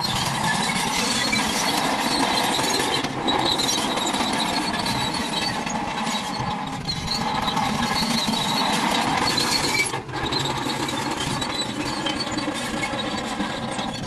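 Toy trucks and a toy bulldozer running, their small motors and gears making a steady mechanical whine and squeal. The sound breaks off briefly twice, about three and ten seconds in.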